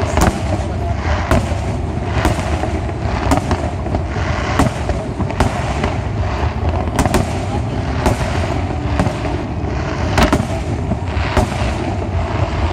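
Aerial fireworks display: shell bursts going off about once a second at uneven spacing, around a dozen sharp bangs, over a continuous rumble and crackle of further bursts.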